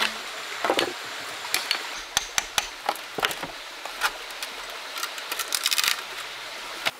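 Irregular wooden knocks and clicks from wood being worked by hand, with a quick run of clicks about five seconds in.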